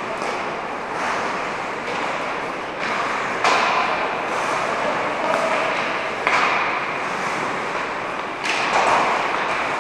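Ice rink noise: skates scraping across the ice with a few sudden louder scrapes and thuds, echoing in the large hall.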